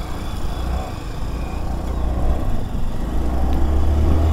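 A scooter under way: its engine and road noise run as a steady low rumble that grows a little louder near the end.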